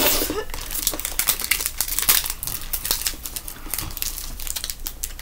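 Chocolate bar wrapper crinkling as it is handled, a dense run of quick, irregular crackles.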